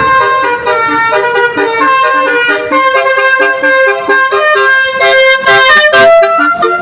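A fast tune of short, buzzy horn-like notes stepping up and down in pitch, with no engine noise under it.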